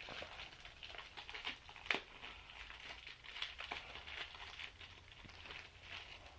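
Packaging crinkling as it is handled, with scattered small clicks and one sharper click about two seconds in.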